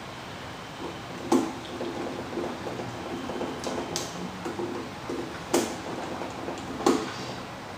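Hand work with a small screwdriver on a plastic quadcopter frame, tightening the screws of the landing gear and dome: four sharp clicks spaced one to two and a half seconds apart, with faint small ticks and scraping between.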